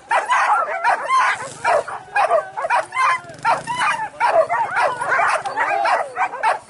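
Excited dogs yelping and barking in a rapid, unbroken string of short high-pitched yelps, typical of coursing dogs worked up by a chase.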